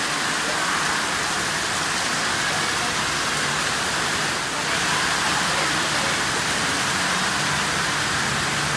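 Heavy rain pouring steadily, a constant even hiss of downpour on pavement and gravel.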